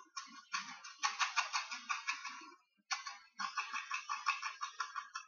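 Coffee granules being shaken out of a small paper packet into a cup: a dense, rapid rattling patter. It stops briefly about two and a half seconds in, then goes on.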